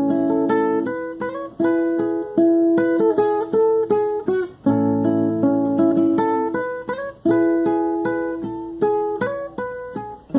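Acoustic guitar playing an instrumental passage of picked notes and strummed chords. It drops out briefly about four and a half seconds in and again just before the end.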